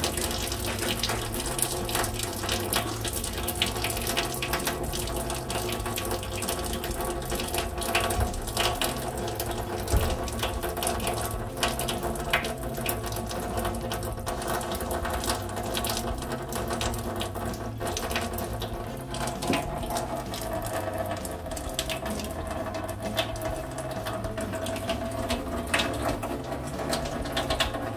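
Water-purifier faucet running a steady stream of water into a stainless steel sink. The new filters are being flushed, which the installer says takes 20 to 30 minutes until the first black water runs clear.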